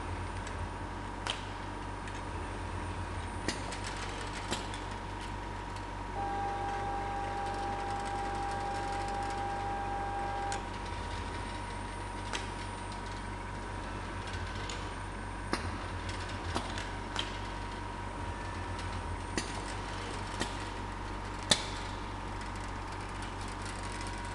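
Automated pallet conveyor of a CIM training production line running with a steady mechanical hum and whine, with sharp clicks and knocks of pallets and pneumatic parts every few seconds. A steady high tone sounds for about four seconds, starting about six seconds in.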